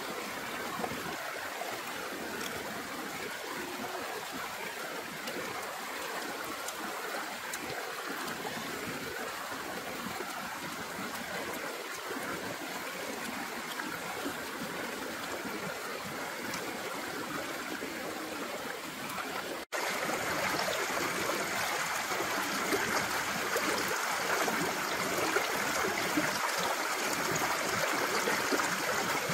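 Shallow stream rushing over rocks, a steady wash of water noise. It cuts out for an instant about two-thirds of the way through and comes back louder.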